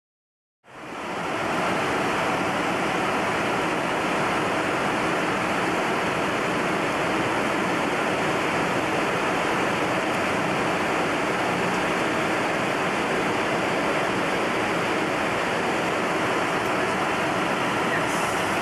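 Boeing 727 cockpit noise in flight, a steady rushing hiss that comes up out of silence about a second in and then holds level.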